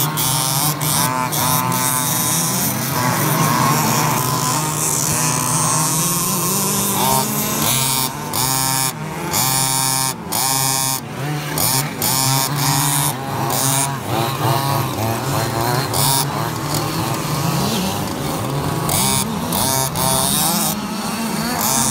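Several 1/5-scale petrol RC cars of the HPI Baja kind racing on a dirt track. Their small two-stroke engines rev up and down in overlapping whines, with brief drops as throttles are lifted.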